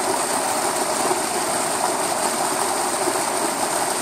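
Small forest stream cascading over mossy rocks: a steady, even rush of water.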